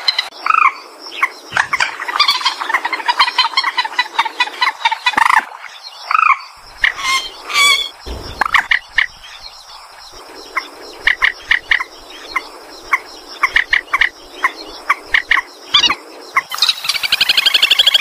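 Calls of rail-family waterbirds: many short calls repeated at uneven spacing, mixed with clicking notes. Near the end a fast run of high notes starts, falling slightly in pitch.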